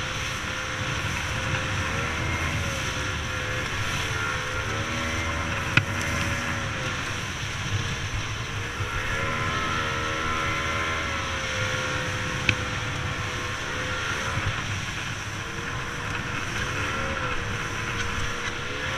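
Aluminium racing tinny's outboard motor running hard at speed over a rush of wind and water, its pitch rising and falling with the throttle. Two sharp knocks, about six and twelve seconds in.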